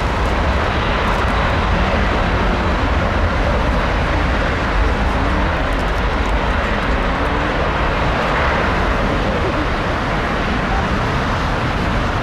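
Jet engines of a Lufthansa Boeing 747 moving on the ground, a steady loud rumble and hiss with a heavy low end.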